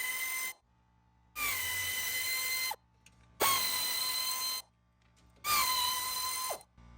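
Air ratchet running in four short bursts of about a second each, a steady high whine over the hiss of air, as it backs out the fasteners on the recliner motor's mounting brackets.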